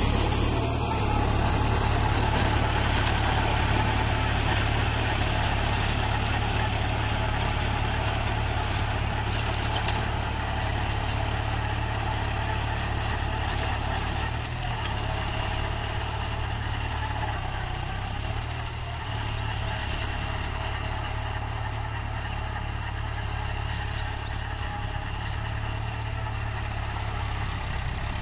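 New Holland tractor engine running steadily under load while it drives a rotavator through the soil, in low second gear with the 540 PTO engaged at about 1,700 rpm. The sound slowly fades as the tractor moves away.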